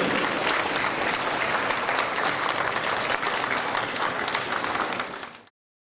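A group of children and adults applauding together, dense continuous clapping that fades a little and then cuts off suddenly near the end.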